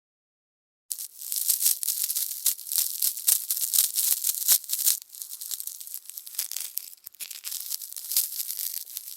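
Dry, high-pitched rattling made of many quick irregular strokes, starting suddenly about a second in after silence.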